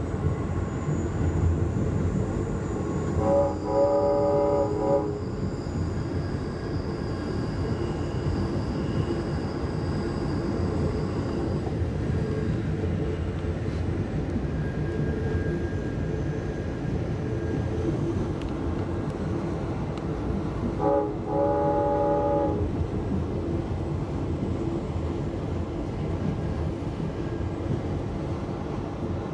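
Steady rumble of a passenger rail coach rolling along the track, heard from inside the car. A locomotive horn chord sounds twice, each time a brief toot then a blast of about a second and a half: once a few seconds in, and again after about twenty seconds.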